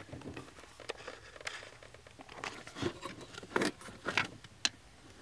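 Scattered light rustling and small clicks, the handling noise of someone moving about in a car's footwell under the dash, with a few brief louder taps.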